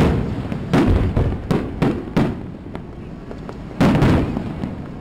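Aerial firework shells bursting overhead: a quick string of booms over the first two seconds or so, then a louder boom about four seconds in, each trailing off in an echo.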